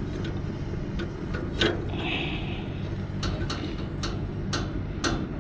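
Brazing torch flame running steadily on a copper suction-pipe joint while an adjustable wrench pulls at the pipe, making scattered light metal clicks; the brazed joint has not yet softened enough to let go.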